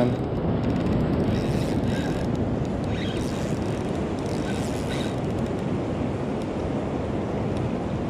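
Steady rushing of fast, churning river water, with wind buffeting the microphone.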